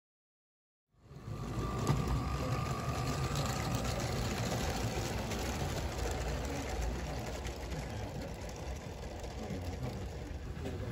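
Garden-scale model diesel locomotive running along the track: a steady motor and gear hum with wheel rumble, starting about a second in.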